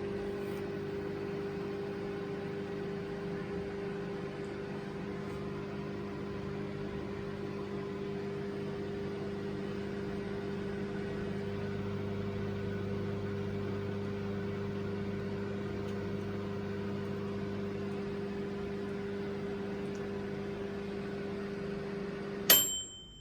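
BGH microwave oven running with a steady hum, which stops near the end with a sharp click and a short high beep.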